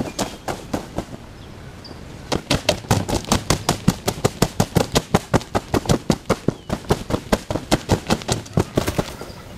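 A shot wild turkey tom flopping in its death throes, its wings beating against the ground in sharp thumps. A few thumps at first, then from about two seconds in a steady run of about four to five a second until near the end.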